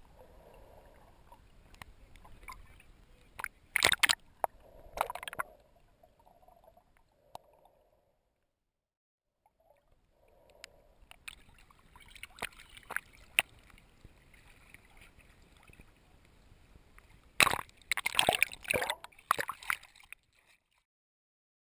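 Water sloshing and gurgling around a camera held just under the sea surface, with sharp splashes about 4 and 5 seconds in and a burst of splashing near the end as the camera breaks the surface. It drops to silence for a couple of seconds in the middle.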